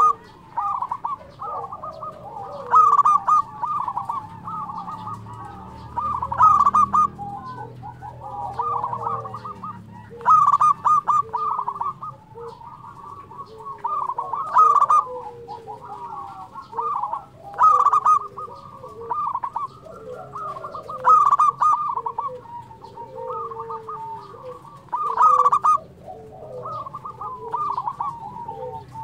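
Zebra doves (local perkutut) cooing in full song. Loud bursts of rapid, stuttering coos come about every three to four seconds, with softer sliding coos in between.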